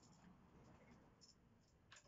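A few faint metallic clicks and taps from a spark plug socket on the Italika DM200's spark plug as the plug is unscrewed from the cylinder head, the sharpest just before the end.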